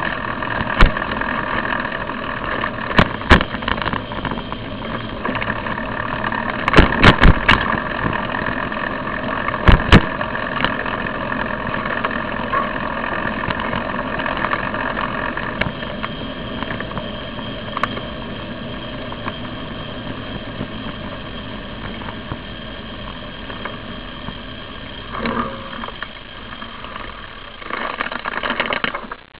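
Steady rolling noise of a bicycle on the road, picked up by a camera mounted on the bike, with sharp knocks and rattles from bumps, several of them in the first ten seconds.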